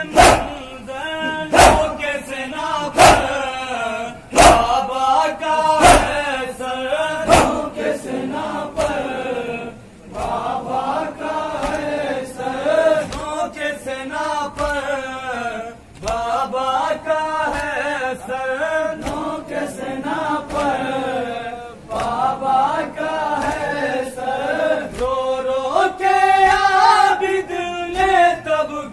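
A group of men chanting a noha (Shia mourning lament) in unison, with matam: hands striking chests together in loud sharp beats about every second and a half, seven times in the first nine seconds. After that the chant carries on with the strikes much softer.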